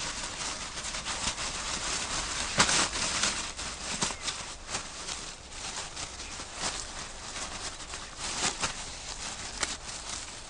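Irregular rustling of leaves and brush with many sharp crackles and snaps, as of a black bear foraging through vegetation.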